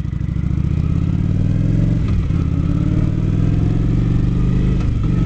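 Kawasaki Vulcan 900 Classic's V-twin engine accelerating from the rider's seat. The engine note rises, dips briefly about two seconds in at an upshift, then climbs again, with another shift near the end.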